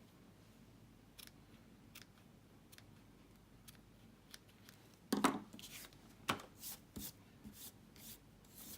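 Light handling sounds of papercraft supplies on a work desk: scattered faint clicks and taps, then a busier run of sharper clicks and paper rustles about five seconds in.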